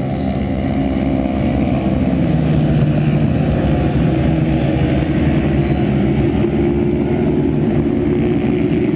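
Several vintage racing motorcycles' engines running at speed on the track, a steady mix of engine notes that shift in pitch as the bikes pass.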